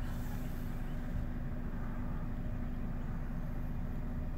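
Car engine running, heard from inside the cabin: a steady low rumble with a constant hum.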